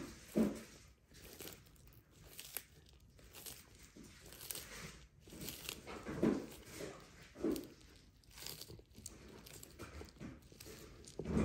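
Sulcata tortoise eating, biting and tearing at its food with irregular crunching bites.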